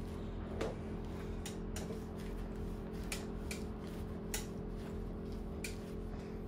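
Old rubber handlebar grip being twisted and pulled off an enduro motorcycle's handlebar, giving a few scattered clicks, over a steady low hum.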